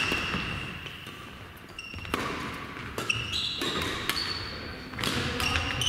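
Badminton being played on an indoor court: several sharp racket-on-shuttlecock hits about a second apart, mixed with short high squeaks of court shoes skidding on the floor.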